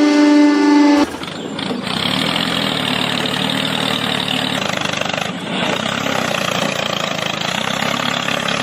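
A steady high-pitched tone cuts off abruptly about a second in, and an engine starts running steadily in its place, dipping briefly about five seconds in.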